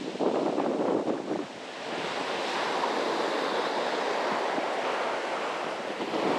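Sea surf washing onto the beach, an even wash of water noise that dips briefly about a second and a half in and then runs steady.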